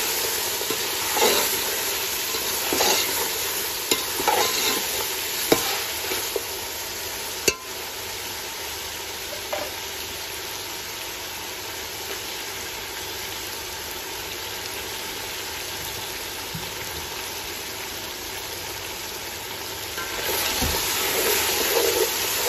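Boiled beef pieces frying in hot oil with browned onions and garlic in a metal pot: a steady sizzle. A wooden spoon scrapes and stirs through the meat in the first several seconds and again near the end.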